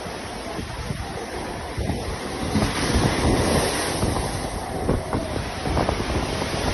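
Wind buffeting the microphone over the steady wash of rough surf.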